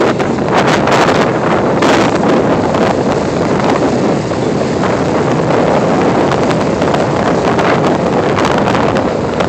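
Wind buffeting the camera's microphone: a loud, steady rush of noise.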